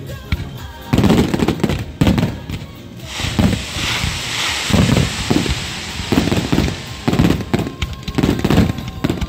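Aerial fireworks shells bursting in quick succession, a string of deep booms one after another. From about three seconds in, a dense crackling hiss from crackle effects rides over the booms.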